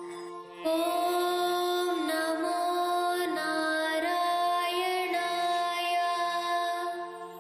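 A single voice chanting one long, melodic devotional line over a steady drone. The voice comes in about a second in and fades near the end, leaving the drone.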